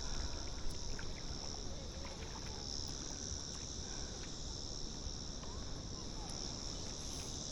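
A steady, high-pitched insect chorus that swells and eases slowly, over a low rumble of background noise.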